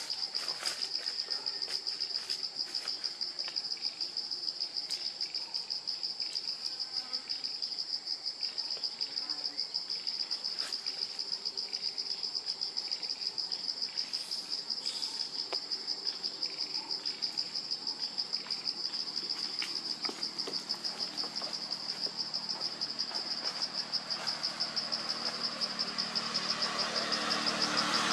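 Insect chorus trilling steadily at a high pitch, a fast even pulsing, with a few faint clicks. A louder rushing noise builds near the end.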